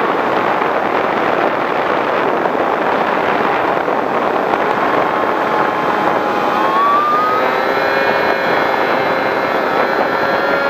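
Skywalker FPV plane in flight, heard from its onboard camera: a steady rush of wind over the microphone with the whine of its electric motor and propeller. The whine dips, then rises in pitch about two-thirds of the way through.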